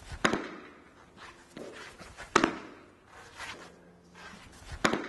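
A soft training ball struck by a cricket bat three times, about two and a half seconds apart: deadened forward defensive blocks. Softer knocks come between the strikes, and each sharp knock echoes briefly off the hall.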